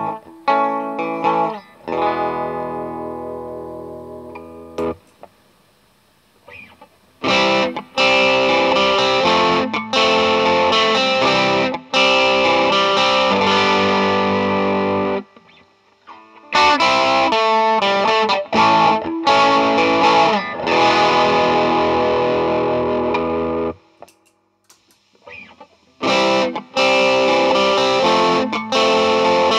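Electric guitar with humbuckers played through low-gain overdrive pedals. At the start a few picked notes and a chord ring out and fade. After a pause, driven chords and riffs play through a Barber Gain Changer, and near the end through a Fredric Effects Blue Monarch overdrive.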